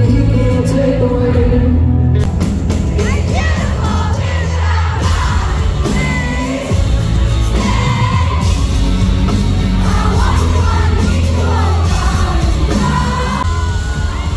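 Live pop concert heard from inside the crowd: loud amplified music with heavy bass and singing, with audience members whooping and screaming over it, mostly in the second half.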